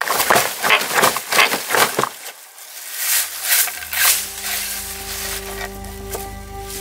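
Dry leaves and twigs crunching and crackling as a hand sweeps them aside, for about the first two seconds. About three seconds in, a low, steady musical drone sets in, with a few lighter rustles of leaves over it.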